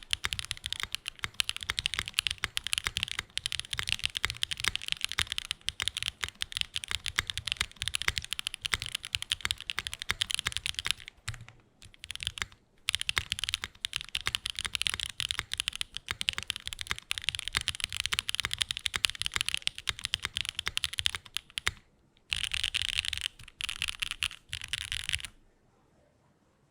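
Fast, continuous typing on a Frog Mini mechanical keyboard with stock SWK Jieum V2 switches, GMK keycaps and a laminate plate, dampened with mid foam only. There are a few brief pauses, and the typing stops shortly before the end.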